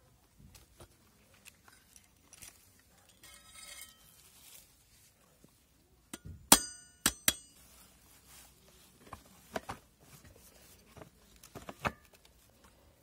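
Metal clicks and clinks from pliers working the spring of a petrol string trimmer's centrifugal clutch: three sharp, ringing metallic clicks about six and a half seconds in, with lighter taps and clicks before and after.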